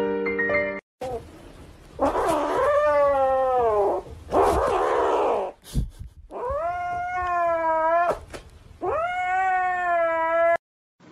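Kitten meowing: about four long meows of a second or two each, every one rising at the start and then sliding down in pitch.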